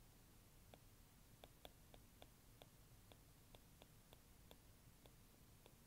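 Faint, irregular clicks of a stylus tapping on a drawing tablet while a word is handwritten, about three a second, over near-silent room tone.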